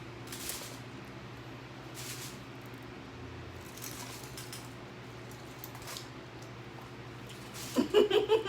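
A steady low hum with a few brief soft crackles, then a burst of laughter near the end.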